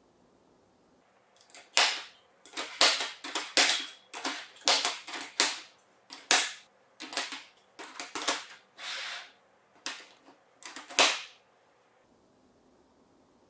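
Plastic marble-run toy clattering: a quick, irregular series of sharp hard-plastic clacks and rattles, about twenty in all, starting about a second and a half in and stopping about eleven seconds in.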